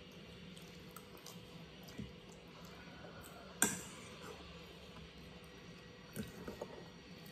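Quiet table eating sounds: a few light clicks of a fork against a ceramic bowl, the sharpest about three and a half seconds in, with smaller clicks near the end.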